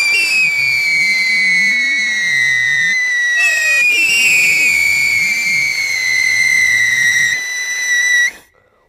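Handheld bundle of five whistling pencil fireworks burning: a loud, shrill whistle that slides slowly down in pitch, followed about three and a half seconds in by a second whistle that slides down the same way, over a hiss of sparks, cutting off suddenly near the end.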